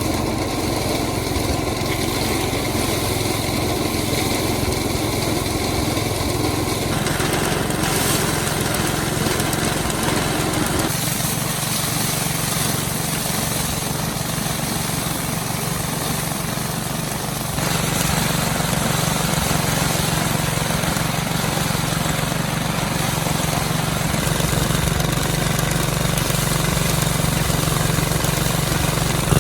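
Small engine running steadily, its sound changing abruptly a few times.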